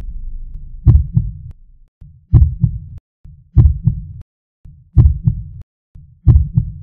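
Heartbeat sound effect on the soundtrack: five deep double thumps, lub-dub, each opening with a sharp click, repeating evenly a little over a second apart.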